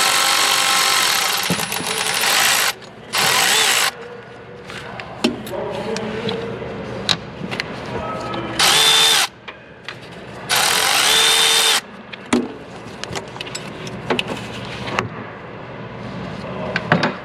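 Cordless power tool whirring in four bursts, the first and longest about two and a half seconds, as it backs out tight 10 mm bolts holding a bracket. Clinks and knocks of metal parts and tools come between the bursts.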